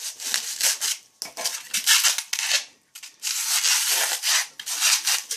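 A narrow putty knife scraping stuck-on insulating foam off a water heater's metal tank, in about four rough strokes with short breaks between them.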